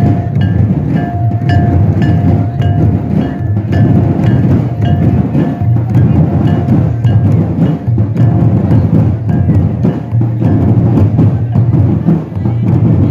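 Percussion-led dance music: drums keep a steady beat, with sharp struck notes about twice a second, many ringing with a bright higher tone.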